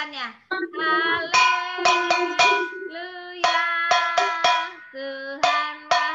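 A woman singing in long held notes, with a stick beating a round hand-held percussion instrument in sharp strikes, three at a time about half a second apart.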